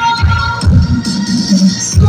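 Recorded dance music with a steady, driving bass beat, about four beats a second, under sustained melody tones.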